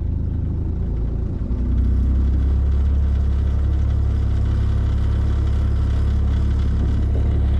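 Boat motor running steadily at low speed, its low hum stepping up in level about two seconds in and then holding.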